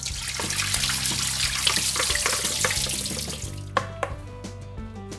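Hot blanching water poured off tenderstem broccoli from a bowl through a colander into a sink, splashing steadily and dying away after about three and a half seconds. A few light knocks follow as the bowl and colander are handled.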